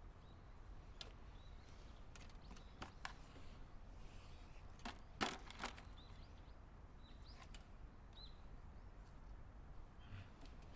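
Faint scattered clicks and light taps from hands working with wires and small tools, the loudest pair about five seconds in, over a low steady hum.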